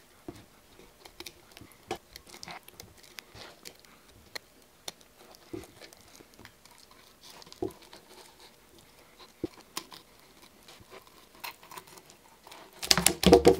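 Fillet knife cutting along a bluegill's backbone and through its scales and flesh: scattered soft crackles and clicks. A louder flurry of knocks comes near the end.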